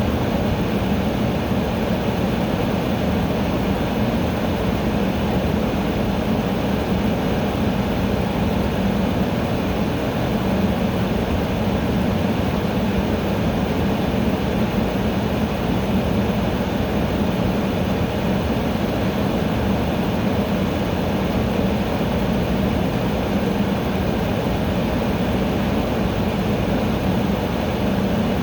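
Air conditioner running: a steady rush of air over a low hum.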